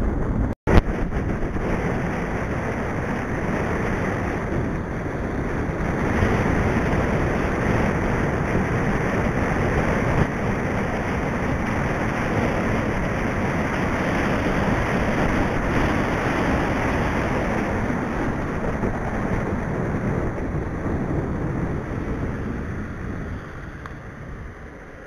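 Wind rushing over the microphone of a bike-mounted camera, with road noise, as a mountain bike rides fast down a lane. The noise dies down over the last few seconds as the bike slows.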